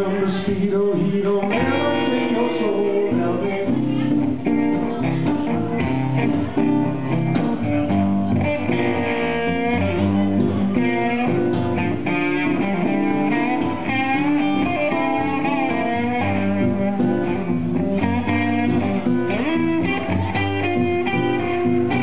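Live guitar music from a band, continuous throughout, with guitar lines over a steady accompaniment.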